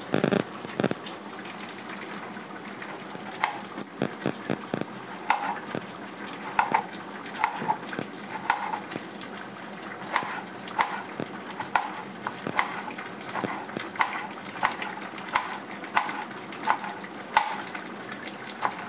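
Kitchen knife chopping snake gourd on a plastic cutting board: a steady series of short knocks, a little under two a second. At the start, a few scrapes of a handheld peeler stripping the gourd's skin.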